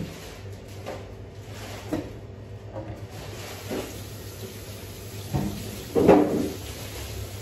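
Kitchen handling noises: a few light knocks and bumps spaced about a second apart, then a louder clatter about six seconds in, over a steady low hum.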